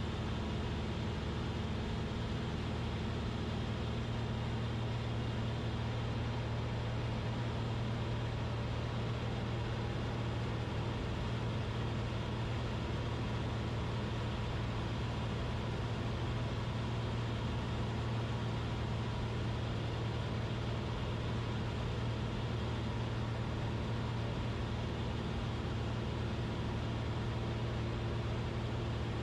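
Cessna 172RG's four-cylinder Lycoming engine and propeller droning steadily in flight, heard from inside the cockpit.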